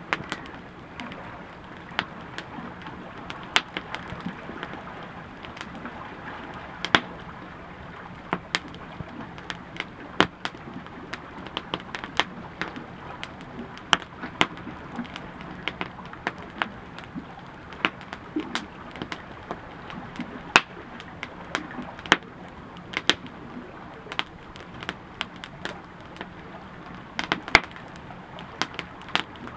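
Campfire burning, crackling steadily with frequent sharp, irregular pops over a low hiss.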